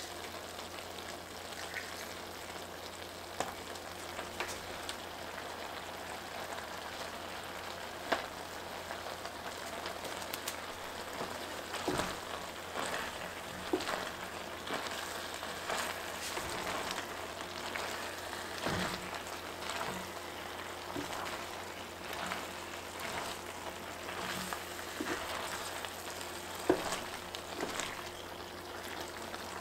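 Pasta and ground pork sizzling in an enameled braiser, a steady hiss. From about halfway through, a wooden spatula stirs the pasta, with repeated soft knocks and scrapes against the pan.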